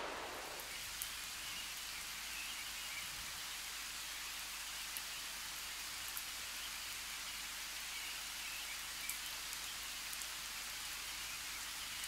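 Steady, even outdoor ambient hiss with a few faint scattered ticks; no animal calls stand out.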